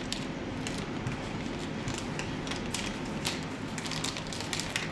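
Paper burger bag crinkling in the hands as a hamburger is bitten and chewed, a steady run of small crackles.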